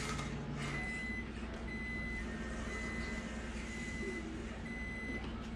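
Electronic beeping alarm: five half-second beeps at one steady pitch, about one a second, over a low steady hum.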